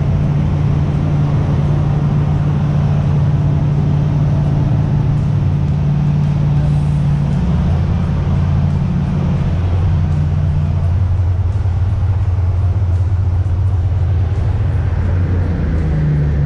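Boat engine running steadily, a low drone under a constant rush of noise, its pitch shifting slightly about halfway through.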